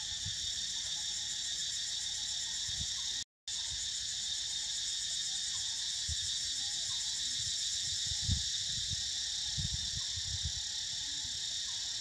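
Steady chorus of forest insects, an even high-pitched drone. It drops out completely for a moment about three seconds in, and a few soft low thumps come near the end.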